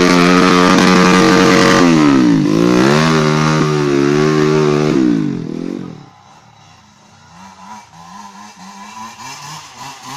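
Dirt-bike engine revving hard close by, held high, with its pitch dipping and climbing back about two seconds in, then falling away and cutting off around five to six seconds in. After that, a fainter dirt-bike engine revs up and down in uneven bursts.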